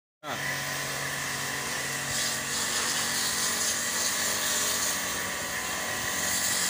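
Pressure washer running steadily, its high-pressure water jet hissing against cooling-tower fill panels over a constant machine hum. The sound cuts in abruptly just after the start.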